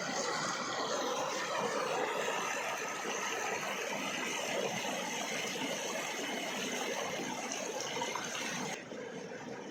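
Waterfall: a steady rush of falling water, turning quieter and duller near the end.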